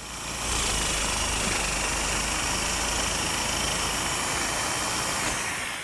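Handheld jigsaw with a metal-cutting blade running steadily as it cuts through the metal leaf of a piano hinge.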